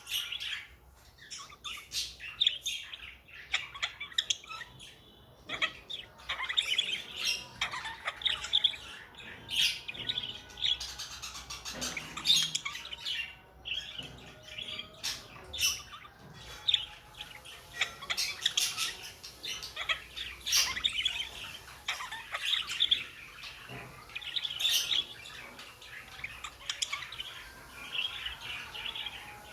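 Budgerigars chattering: short chirps and sharper calls one after another without a break.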